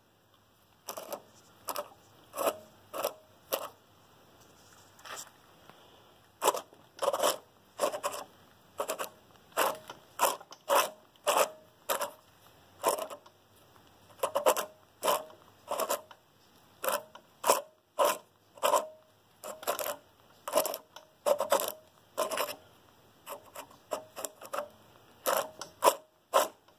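TH400 intermediate sprag and its drum turned back and forth by hand, giving short, irregular metal-on-metal scrapes and clicks with a brief ring, about one or two a second, with a short lull a few seconds in. The sprag has rolled over, the fault behind the lost second gear and the noise in the transmission tunnel.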